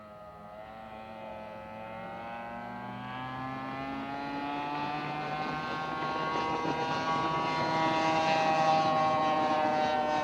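Drag boat's Allison V12 aircraft engine running hard, its pitch rising steadily as it gets louder, loudest near the end.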